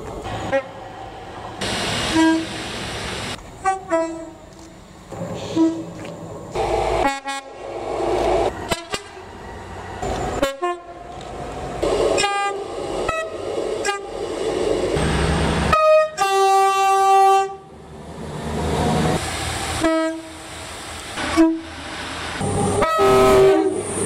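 Train horns sounding in a series of short blasts that alternate between a low and a high note, the two-tone pattern, with one longer blast about sixteen seconds in. Near the end a train runs past close by.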